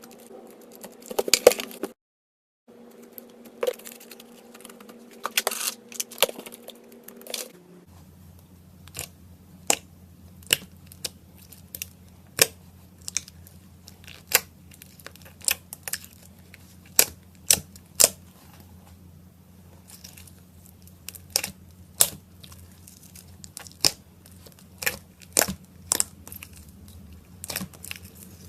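Slime being pressed, poked and stretched by hand, giving sharp crackling clicks and pops, a few at a time, over a low steady hum. The sound drops out completely for a moment about two seconds in, and the background hum changes near eight seconds.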